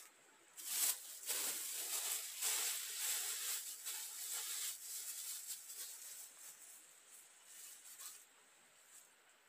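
Plastic bag being handled and crumpled, a crackly rustling that is loudest for the first few seconds and then dies down to lighter, scattered rustles.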